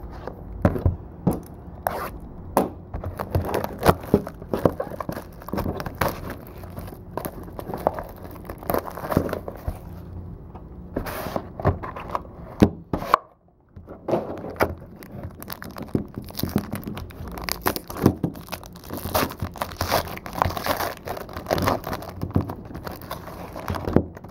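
Trading-card packs and wrappers being torn open and cards handled: tearing and crinkling wrapper with many small irregular taps, clicks and scrapes, broken by a short gap about halfway through.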